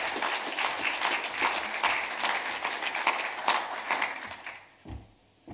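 Audience applauding, a dense patter of clapping that dies away about four and a half seconds in, followed by a soft thump near the end.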